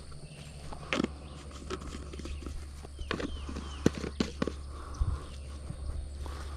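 Irregular light knocks, clicks and rustles of hands and feet at work in a garden bed, the sharpest knocks clustered in the middle, over a low steady hum.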